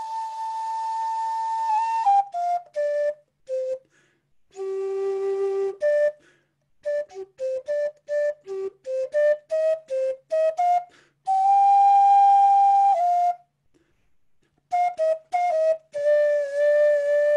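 Wooden end-blown flute played solo, improvised. It opens on a held note, then plays runs of short detached notes with brief silences between them, one low held note, and long sustained notes around the middle and at the end, the last with a slight waver in pitch.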